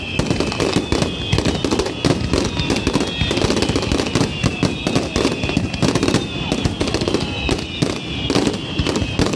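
Fireworks finale barrage: a continuous rapid volley of shell bursts and crackles, many sharp bangs a second with no let-up.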